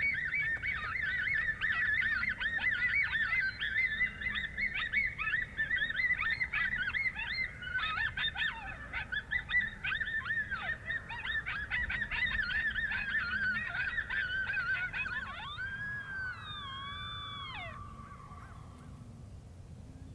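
Coyote pack chorus: a dense run of rapid, high-pitched yips, then about three-quarters through a long howl that rises, wavers and falls away.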